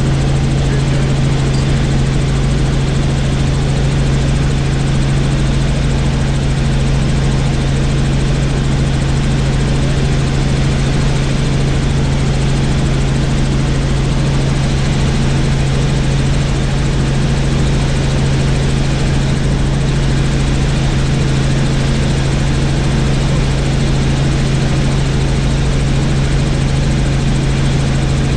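Helicopter in flight: a loud, steady rotor and engine noise with a strong constant low hum.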